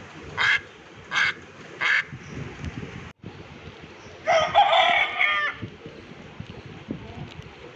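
Recorded bird calls: three short calls in quick succession, then, after a brief break, a rooster crowing once, loud and lasting just over a second.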